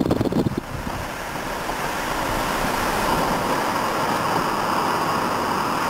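Steady wind and road noise inside a moving car on a winding road, with a slight dip in loudness about half a second in.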